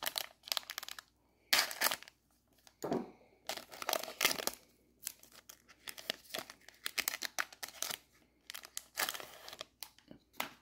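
Foil wrapper of a Donruss trading card pack being torn open and crinkled, in a string of short, irregular crackling rustles.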